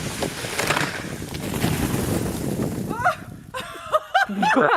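A steady rushing noise, like wind or water, then a person's voice breaking into laughter in the last second and a half.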